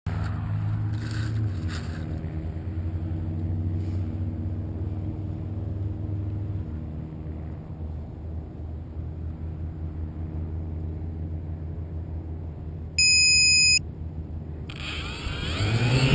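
A low steady hum, then a single electronic beep lasting under a second, then the tricopter's three 1000kv brushless motors with 9047 propellers spinning up near the end, their whine rising in pitch.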